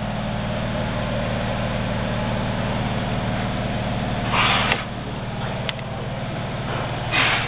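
13-inch by 40-inch geared-head lathe running steadily with a constant gearbox and motor hum. Two brief rasping noises come about four and a half seconds in and near the end, with a single click between them.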